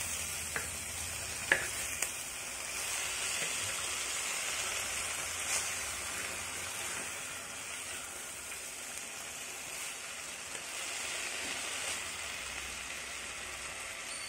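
Chopped ponnaganti (dwarf copperleaf) greens frying in hot oil in a kadai, a steady sizzle as they are stirred with a spatula. A few sharp knocks of the spatula against the pan in the first two seconds.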